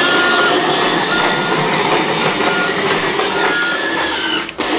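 Motorized toy garbage truck running with its electronic sound effects: a steady mechanical whir with a short high reversing beep about once a second. The sound cuts out for a moment near the end, then carries on.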